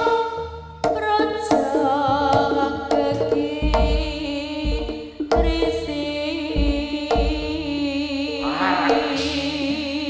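Jaranan gamelan music played live: deep drum strokes and steady ringing gong-chime tones under a wavering high melody line.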